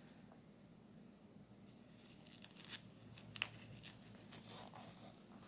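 Near silence: room tone over a faint steady hum, with a few soft handling rustles and light taps, one about three and a half seconds in and a longer rustle near the end.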